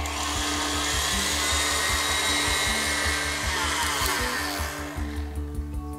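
Electric stand mixer beating cake batter at speed: a steady whirring motor whine that slows and fades out about five seconds in.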